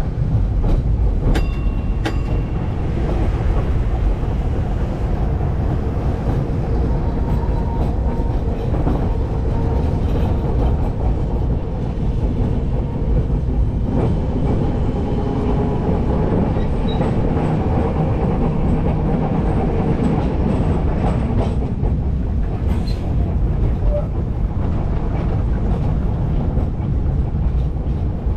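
1925 W2-class tram running along its track: a steady rumble of steel wheels on the rails, with a couple of sharp clicks about a second in.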